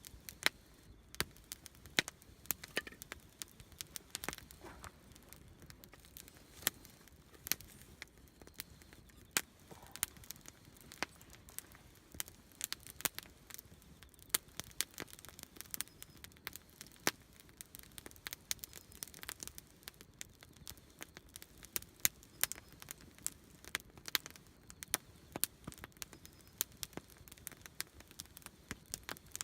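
Wood campfire burning, with many irregular sharp crackles and pops over a faint hiss.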